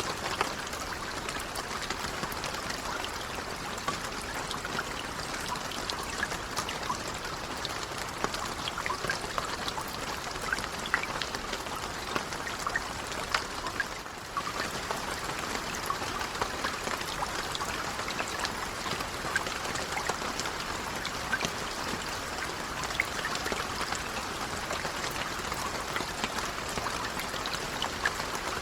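Steady, gentle rain falling, a continuous hiss with many distinct drops ticking through it. The level dips briefly about halfway through, then carries on as before.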